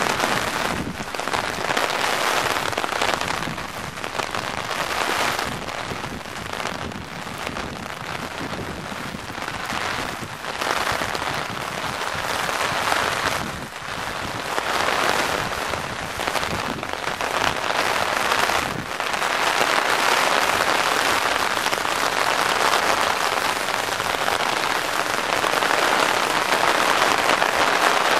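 Heavy rain at the start of a thunderstorm, pattering on an umbrella overhead and on wet pavement: a dense, steady hiss that swells and eases and grows heavier for the last third.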